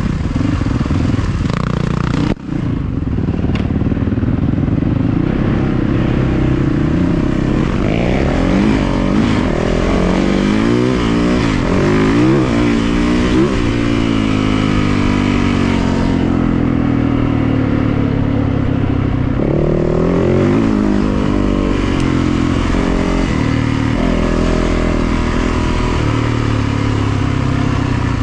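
450cc four-stroke single-cylinder dirt bike engine being ridden hard off-road, its pitch climbing and dropping again and again as the throttle is worked. There is a sharp momentary dip in the sound about two seconds in.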